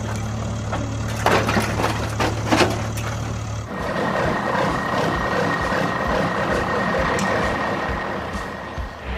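A vehicle engine running, steady and low with scattered knocks. About three and a half seconds in it changes to a noisier running sound with a thin, steady high whine.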